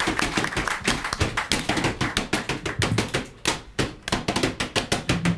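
Empty bottles played as percussion: a rhythmic run of quick clicks and crackles from plastic bottles being shaken and squeezed. Low blown-bottle notes come in near the end.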